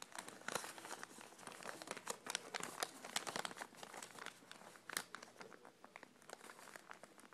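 Origami paper crinkling and rustling in the hands as a flap is pulled out, collapsed and creased: irregular soft crackles, with one sharper crack about five seconds in.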